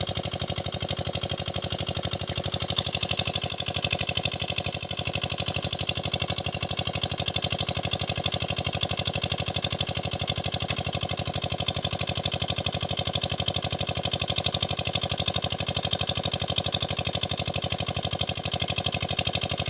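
A small engine running steadily at an even speed, with a rapid, regular chugging beat.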